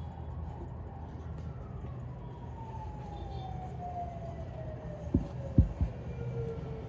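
Steady city traffic hum with a distant siren whose pitch falls slowly and steadily, like a siren winding down. Three short dull thumps come close together about five seconds in.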